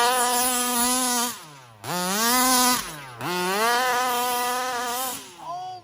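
Two-stroke gas engine of a Rovan ALX RC car revved three times, each rev held for about a second before the pitch drops back toward idle.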